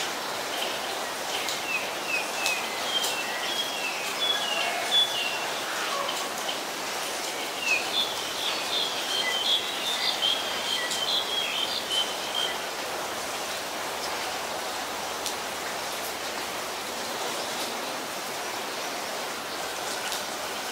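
Black-collared starlings calling: a run of short chirps, busiest from about eight to twelve seconds in, then stopping. Steady rain falls throughout.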